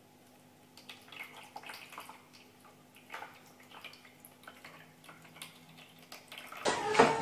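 Water splashing and dripping in a pet drinking fountain as a cat paws at the stream and bowl: irregular light splashes over a low steady hum. Near the end a sudden louder knock.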